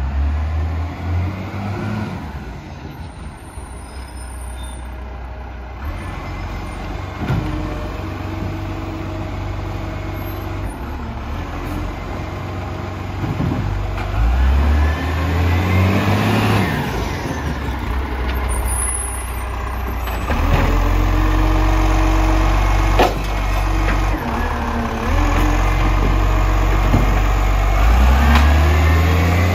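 Garbage truck's diesel engine running, its revs stepping up and down several times, with one sharp knock about two-thirds of the way through.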